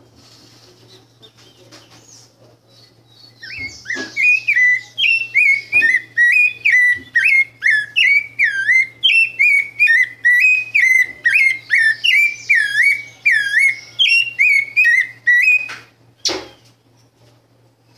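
Caged pale-breasted thrush (sabiá-branca) singing its fluted song: a long run of loud whistled notes, about two a second, starting a few seconds in and stopping about sixteen seconds in. A single knock follows just after the song stops, over a steady low hum.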